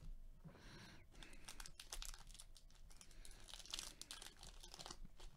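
Foil wrapper of a trading-card pack crinkling and tearing as it is opened by hand: a faint run of crackles that gets denser about three and a half seconds in.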